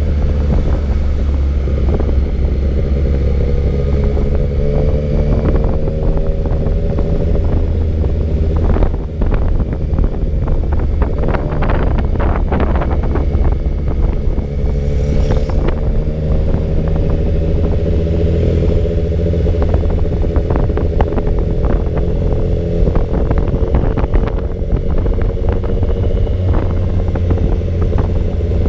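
Motorcycle engine running at steady riding revs, its pitch drifting gently up and down, under a heavy low wind rumble on the microphone, with many sharp ticks and taps scattered throughout.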